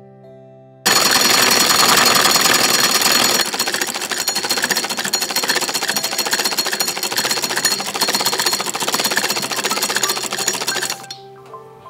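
Black domestic sewing machine running fast: a rapid, even mechanical clatter of the needle and mechanism. It starts abruptly just under a second in, is loudest for the first couple of seconds, and stops about a second before the end. Soft background music with held notes is heard before it starts and after it stops.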